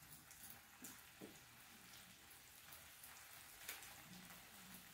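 Near silence: a faint sizzle from the electric skillet, with a few soft clicks from kitchen scissors snipping raw pork belly.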